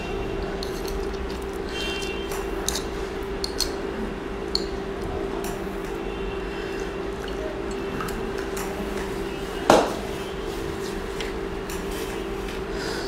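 Wet handling of a raw geoduck over a glass bowl of water as the skin is peeled off its siphon: small squishes and scattered light clicks, with one louder sharp knock nearly ten seconds in, over a steady low hum.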